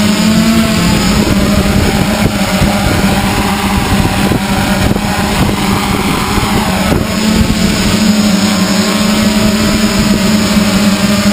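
Electric motors and propellers of a radio-controlled multicopter hovering just above the ground: a steady buzzing hum. For a few seconds in the middle the pitch wavers and rushing noise takes over, then the hum settles steady again.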